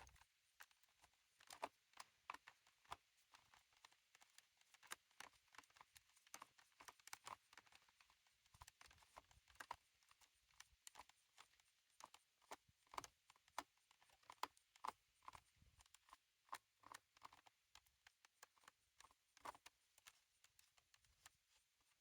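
Faint, irregular clicking and tapping, about two or three clicks a second, of a hand Phillips screwdriver turning out the small screws that hold the battery on a Dyson cordless vacuum.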